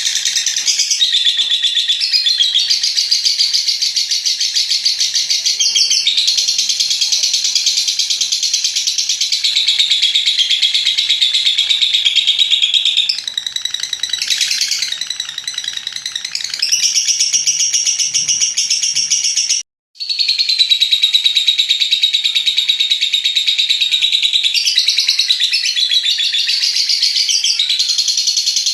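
Lovebird's long, unbroken chattering trill (ngekek panjang): a shrill, rapid rattle of high notes that runs on with only slight dips. It cuts out completely for a split second about twenty seconds in, then resumes.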